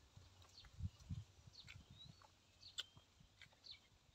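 Faint, scattered bird chirps in the background, with a few soft low thuds of chewing about a second in.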